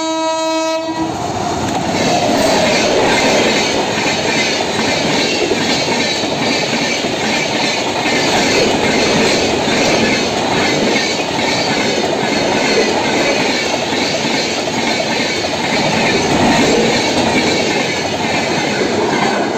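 An electric locomotive's horn sounds and cuts off about a second in. Then an Indian express train passes at speed close by: a loud, steady rush of coach wheels running on the rails.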